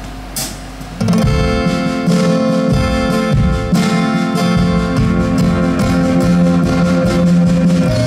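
Live band music led by a strummed acoustic guitar. It starts quiet with a few soft ticks, then the full band comes in loudly about a second in.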